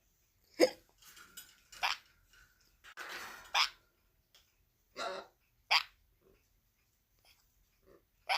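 About half a dozen short, separate hiccup sounds: a person hiccuping and a sun conure copying the hiccups.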